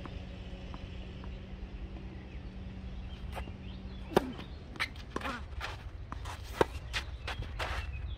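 Tennis racket striking the ball on a serve about four seconds in, then a second sharp hit a couple of seconds later, with lighter knocks of the rally between.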